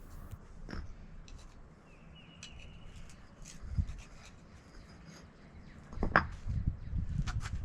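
Concrete pavers being pried up and lifted with a paver puller and flathead screwdrivers: scattered scrapes and clicks, a sharp clack about six seconds in, then a run of dull knocks.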